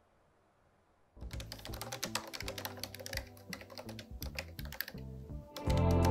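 Near silence, then about a second in, fast typing on a laptop keyboard, a dense run of quick key clicks. Music plays underneath and swells louder near the end.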